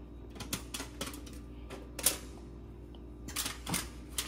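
Scattered light clicks and taps of food being handled and stuffed into a fish, over a steady low hum. The sharpest tap comes about two seconds in, and a short run of taps comes near the end.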